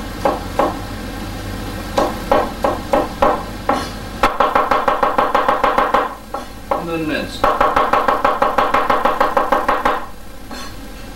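Chinese cleaver chopping water chestnuts on a wooden cutting board: a few separate knocks, then two runs of rapid chopping at several strokes a second, each blade strike thudding on the board.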